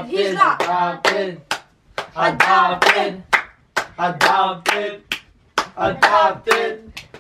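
Hands clapping sharply, about two or three claps a second, under voices chanting in a sing-song.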